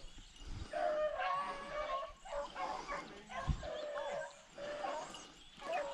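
Rabbit-hunting dogs yelping and baying in a string of drawn-out, high cries, some bending in pitch, with short gaps between them. A short low thump comes about halfway through.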